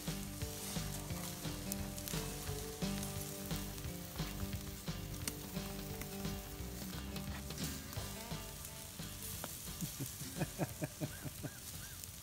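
Steaks sizzling and crackling on a charcoal kettle grill, with scattered sharp pops, over background music with held chords.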